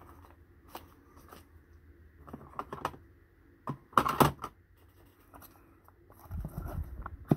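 Gloved hands handling trading cards and a clear plastic card holder: scattered light clicks and taps, with a louder plastic clatter about four seconds in and a soft rustle near the end.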